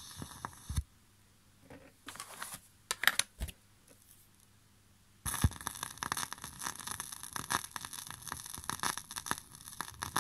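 Vinyl 7-inch single on a turntable between tracks: after a few faint clicks and scrapes, there is a sudden thump about five seconds in, then steady surface crackle and pops as the stylus rides the lead-in groove.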